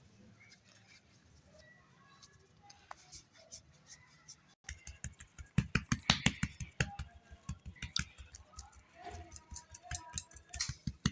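Rapid, irregular knocking and clicking, several strokes a second, starting about halfway through after a stretch of faint handling sounds.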